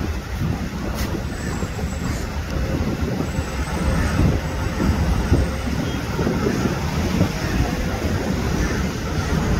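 Steady road traffic noise of cars and trucks driving past.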